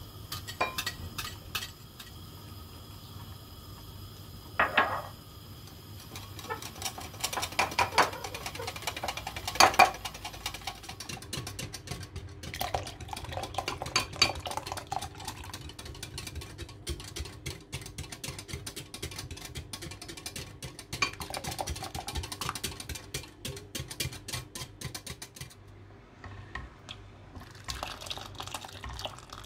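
A wire whisk clinking and rattling fast against a glass measuring jug as milk and egg yolk are beaten, with a few sharp knocks. Later a ladle scrapes and knocks against a soup pot while the tempered mixture is stirred in.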